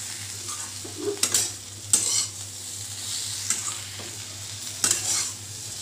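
Spatula stirring and scraping pieces of roti in a metal kadai, with a steady light sizzle of frying underneath. A few sharper scrapes of the spatula against the pan stand out.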